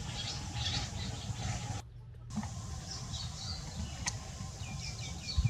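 Steady low rumble with faint, short high chirps, cut by a brief dropout about two seconds in. There is a single click around four seconds and a low thump near the end.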